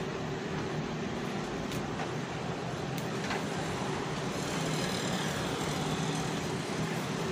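Steady background noise with a low hum, like distant traffic, with a few faint clicks as a plastic blender gearbox housing is handled.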